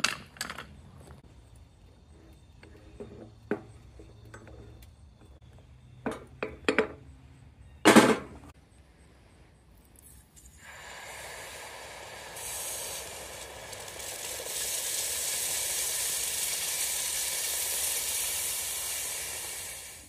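Scattered metal clinks and knocks of foundry tools and ingot molds being handled, with one loud bang about eight seconds in. About halfway through, a steady hiss starts, grows louder in two steps and stops abruptly.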